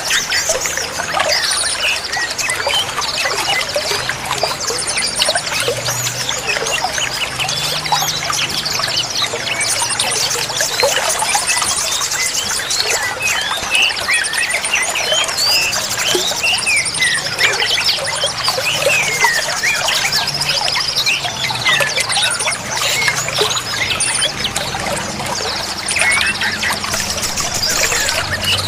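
Steadily running water with many small birds chirping over it: short rising and falling calls, and fast high trills that come and go.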